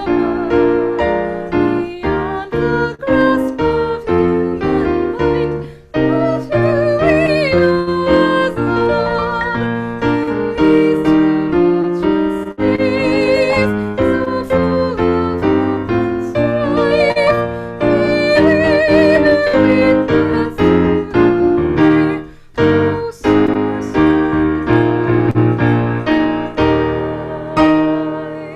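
Piano music with a melody line held with vibrato over it, ending on a last chord that fades away near the end.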